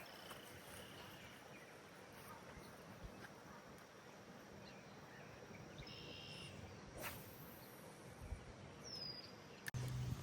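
Quiet outdoor background with a few faint, short bird chirps, including a falling one near the end, and a single sharp click just before the end.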